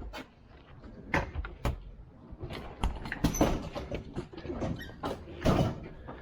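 Handling noise: an irregular run of knocks, clicks and short scrapes, with the loudest knocks about a second in, near the middle and near the end.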